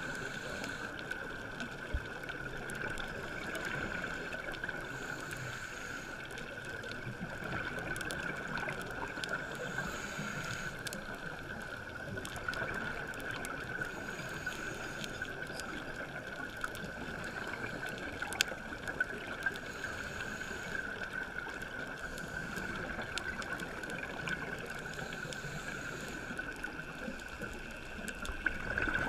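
Underwater sound heard through a dive camera's housing: a steady muffled hiss with a constant hum, and a scuba diver's exhaled bubbles gurgling from the regulator every few seconds.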